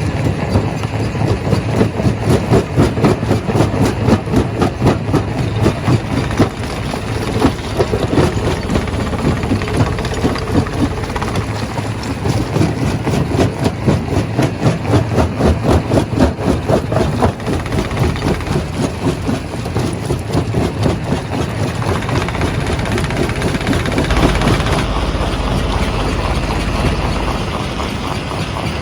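Rock crushing machine running, a heavy engine with rapid, steady rhythmic pulsing that turns into a smoother, deeper rumble about 25 seconds in.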